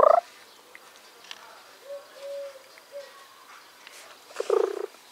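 Cat meowing: a short rising meow at the start and another about four and a half seconds in, with faint soft calls in between.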